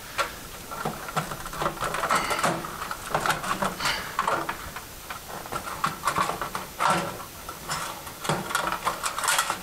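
Thin sheet-metal ballast cover of a fluorescent ceiling fixture being squeezed and worked loose by hand, making irregular metallic scrapes, rattles and clunks.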